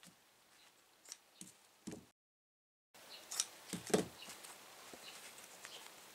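Scissors snipping through a stiff Nishijin brocade obi woven with gold and silver thread, a few short crisp cuts. After a short break, the heavy cloth rustles and knocks as it is handled, loudest about four seconds in.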